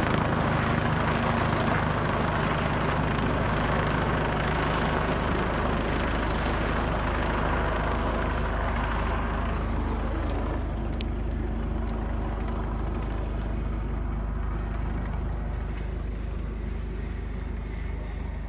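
Medical helicopter's rotor and turbine running close by, a steady low hum under a loud rushing noise that eases off about halfway through, the whole sound slowly getting quieter.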